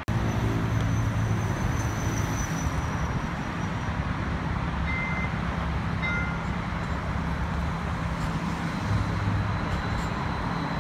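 Street traffic rumbling steadily with a low engine hum as a Brookville streetcar approaches along street-running track, with two short high beeps about halfway through.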